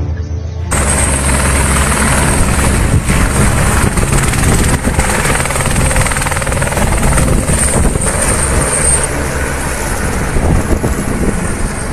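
Helicopter's turbine engine and rotor running loud as it lifts off and flies away, with a steady high turbine whine over the rotor noise; it starts abruptly about a second in.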